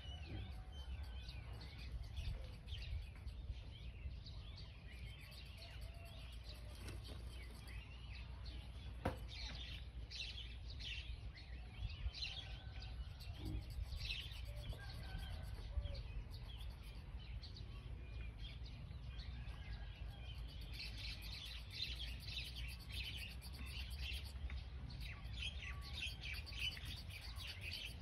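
Birds chirping over and over in the background over a low steady rumble, the chirps growing denser in the last third. A single sharp click about nine seconds in.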